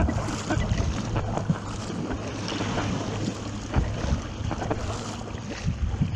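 Wind buffeting the microphone over water splashing and rushing around a surfski being paddled on open sea.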